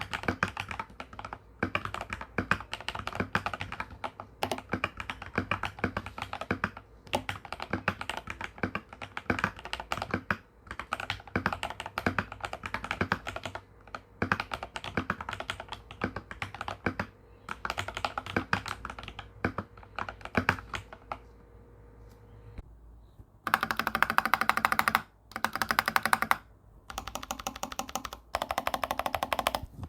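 Typing on an Akko 3098N mechanical keyboard with lubed TTC Ace switches: steady runs of keystrokes, then a lull. About two-thirds of the way in, loud bursts of very rapid two-handed key hammering start, each lasting about a second and a half.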